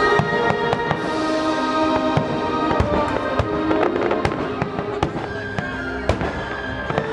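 Aerial fireworks shells bursting in an irregular series of sharp bangs, over music.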